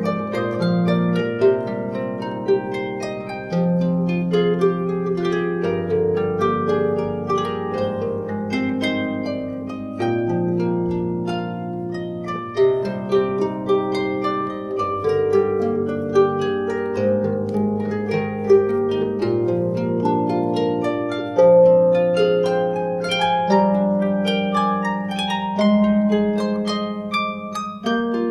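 Solo harp built by luthier Alexander Anushat, plucked in a flowing melody over ringing bass notes, the notes overlapping as they sustain.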